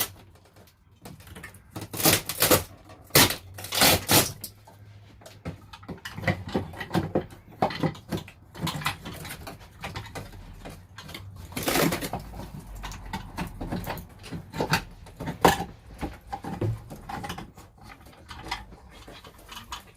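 Irregular knocks, bangs and scraping from RV ceiling panelling being pried and pulled down with a hammer. The loudest bangs come in a cluster about two to four seconds in, and again around twelve and fifteen seconds.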